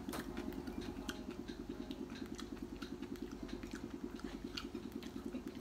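A steady machine hum with a fast, even throb, like a small motor running, under faint scattered clicks and taps of eating by hand from a plate.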